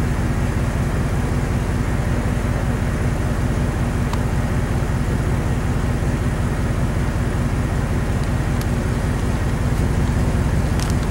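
A vehicle's engine running steadily, a low rumble with a constant hum.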